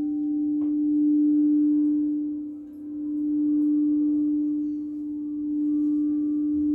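A singing bowl's long, steady tone ringing on, swelling and fading slowly in loudness.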